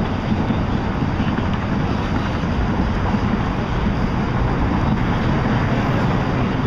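Steady wind noise buffeting the microphone over a constant low engine rumble.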